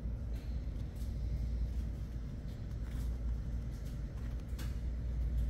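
Steady low background rumble with a few faint clicks scattered through it.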